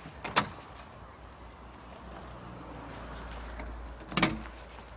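Two sharp thumps against a car's bodywork, about four seconds apart, with a low rumble between them; the newly armed car alarm does not go off.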